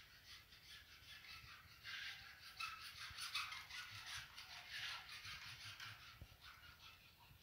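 Hacksaw cutting through a PVC pipe by hand: a faint rasp with each back-and-forth stroke, in uneven strokes.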